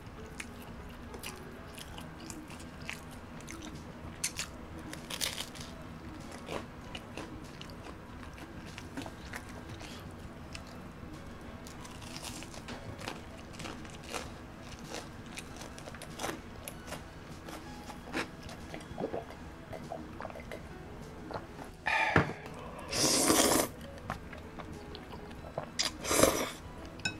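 Close-miked crunching and chewing of crisp oven-baked shrimp toast (menbosha), a stream of small crackly bites. Near the end come two loud noodle slurps, the first long and the second short.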